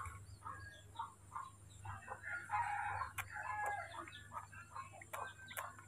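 Bird calls in the background: a string of short chirps, with one louder call about two seconds in that lasts about a second, and a few sharp clicks.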